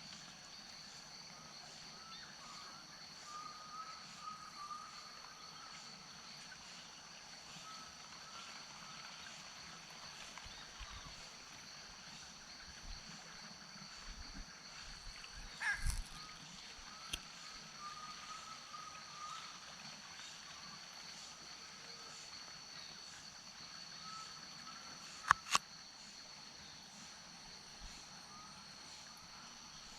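Wetland ambience after rain: a steady high-pitched insect chorus with repeated short warbling animal calls. A knock just past halfway and two sharp knocks in quick succession near the end are the loudest sounds.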